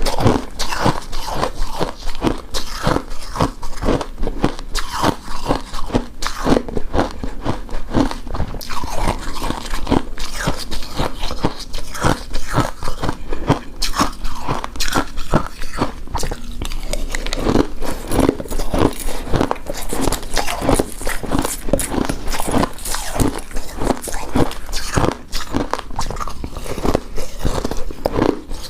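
Close-miked mouth sounds of someone biting and chewing a chewy coconut-coated rice cake: a quick, continuous run of small clicks.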